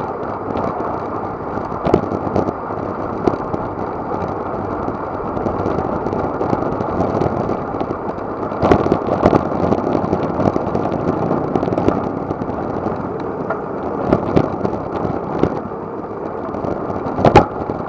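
Riding noise from a road bicycle at race speed: a steady rush of wind and road noise with scattered knocks and rattles, the loudest near the end.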